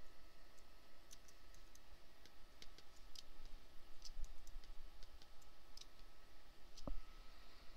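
Light, irregular clicking of a computer mouse and keys, a couple of dozen clicks, as the points of a polygonal lasso selection are placed. A faint steady high whine and low hum sit underneath; the whine stops about seven seconds in.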